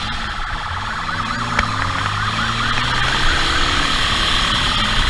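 Police motorcycle siren sounding in a fast rising-and-falling warble, with the pursuing motorcycle's engine running underneath at speed.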